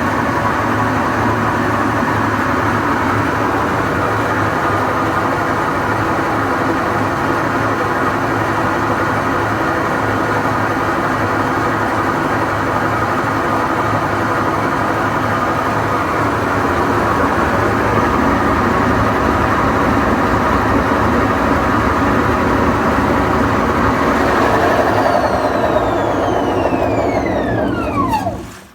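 GE washing machine making a loud, steady mechanical noise of unknown cause. Near the end it winds down with a whine falling in pitch, the drum coasting to a stop, and the noise cuts off just before the end.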